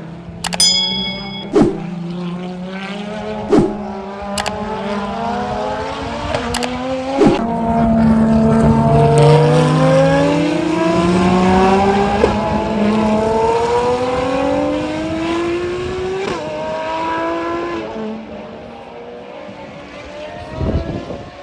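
Ferrari track car's racing engine at high revs, accelerating through the gears: the pitch climbs in repeated sweeps, each one dropping back at an upshift, then fades as the car pulls away. Sharp cracks punctuate the first several seconds.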